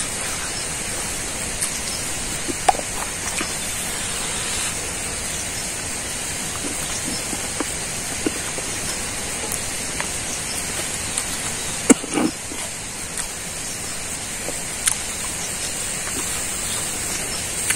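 Steady rushing hiss with a high-pitched edge, over which come small wet clicks and smacks of a man chewing rice and meat eaten by hand; a louder cluster of smacks about twelve seconds in.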